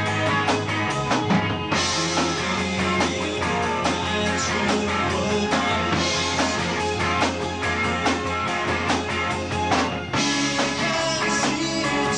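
A rock band playing live: drums, bass and guitar, with the arrangement shifting about two seconds in and again about ten seconds in.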